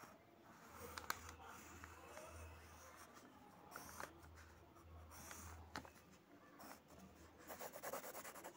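Faint graphite pencil scratching across paper as lines are drawn, with a few sharper ticks and a quick run of short strokes near the end.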